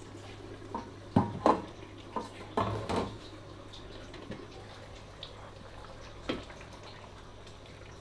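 Cookware handled on a gas stove: a cluster of sharp clinks and knocks of metal pots, lids and a blender jug in the first three seconds, and one more a few seconds later. A steady low hum runs underneath.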